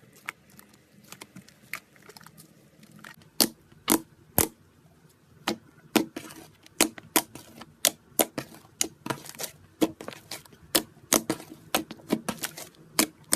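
Slime being squeezed and worked by hand, giving off an irregular series of sharp clicking pops as trapped air bursts. The pops are sparse at first and come thick and loud from about three seconds in.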